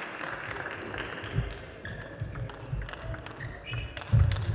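Table tennis rally: a plastic ball clicking sharply off rackets and table in quick succession. Low thuds of the players' footwork come in between, the loudest about four seconds in.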